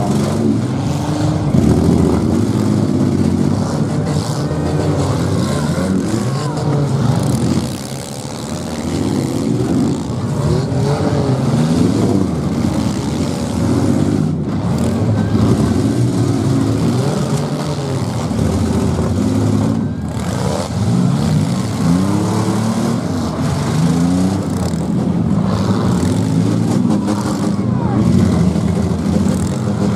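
Several demolition derby cars' engines running and revving at once, their pitches rising and falling over one another as the cars push and ram in a pack. The overall din holds steady, dipping briefly about eight seconds in.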